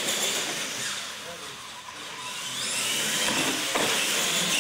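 Electric motors of R/C monster trucks whining as they drive across a concrete floor, with a steady hiss. The whine rises in pitch in the second half as they speed up.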